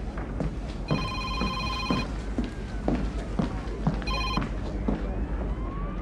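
Smartphone ringtone for an incoming call, an electronic beeping tone sounding in bursts: about a second long near the start, then cut short about four seconds in as the ringing stops unanswered.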